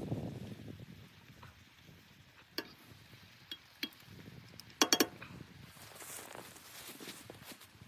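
Soft, irregular crunching and rustling with a few sharp clinks, the loudest a quick run of about four clinks about five seconds in, like camp gear or utensils being handled.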